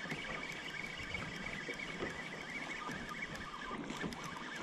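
Sea water lapping and trickling against a plastic kayak hull, with small faint ticks and splashes throughout.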